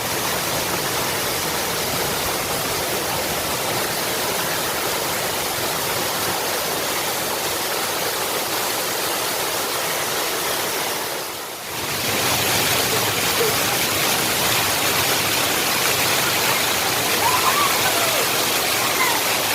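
Floodwater from the swollen Gangadhara stream rushing and pouring in a steady roar of water, swollen by heavy rain. The sound dips briefly about halfway through and comes back a little louder.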